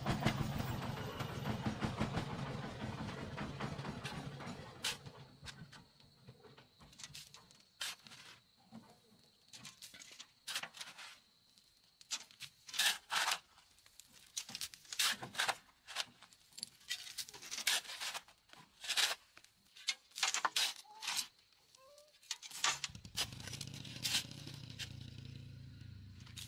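Steel shovel scraping into dry, stony soil and dirt and pebbles spilling off the blade, in irregular strokes with short pauses between. A low rumble is heard for the first few seconds, fades out, and returns near the end.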